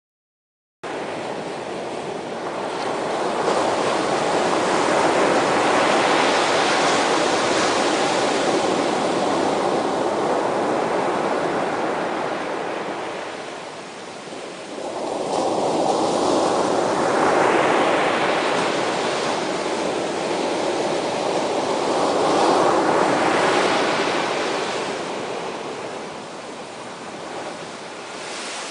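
Sea waves washing onto the shore: a rushing surf that starts suddenly about a second in, swells into a long wash, eases off midway, then a second wave builds, breaks and fades.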